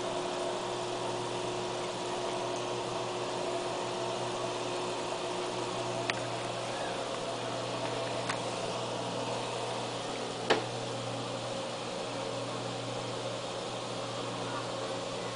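Aquarium filter humming steadily with a few fixed tones. Three short sharp clicks cut through it about six, eight and ten and a half seconds in, the last the loudest.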